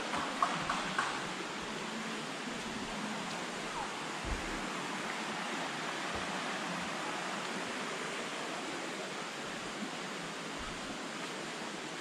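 Shallow rocky river rushing over stones, a steady even rush of water. A few light knocks in the first second.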